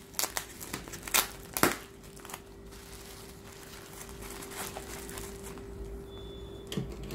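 Plastic bubble wrap crinkling and crackling as hands unfold and unroll it. Several sharp crackles come in the first couple of seconds, then softer rustling.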